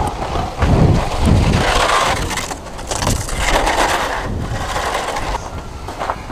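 Strong blizzard wind gusting against the microphone, with heavy low buffeting in the first second or so and then a rushing hiss.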